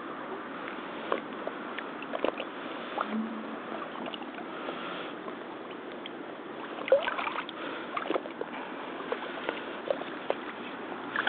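Rubber hip boots wading in shallow, muddy pond water: sloshing and small splashes as the legs move, busiest about seven seconds in, over a steady hiss.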